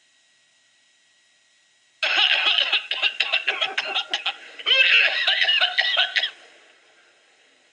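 Laughter in a rapid run of short bursts, starting suddenly about two seconds in and lasting about four seconds, with a brief dip in the middle.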